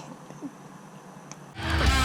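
Loud heavy metal music with electric guitar starts suddenly about one and a half seconds in, after a quiet stretch with a faint click.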